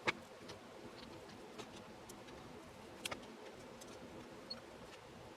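A few faint clicks and taps as a SATA hard drive is fitted onto the case's drive tray: one at the start and a pair about three seconds in, over low room noise.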